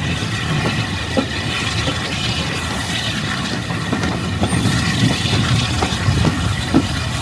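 Railway carriage in motion heard from inside: a steady low rumble with scattered knocks and clatter from the running gear.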